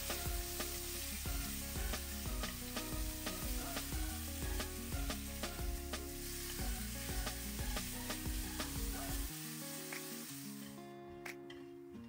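Diced pork belly sizzling in hot oil in a nonstick wok, stirred with a silicone spatula that scrapes and taps the pan. The sizzle cuts off near the end, leaving background music.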